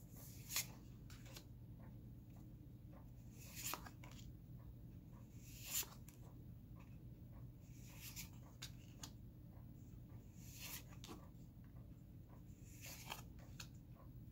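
Faint swishes of Magic: The Gathering cards sliding against each other as a booster pack is flipped through one card at a time, a soft brush every two to three seconds over a low steady hum.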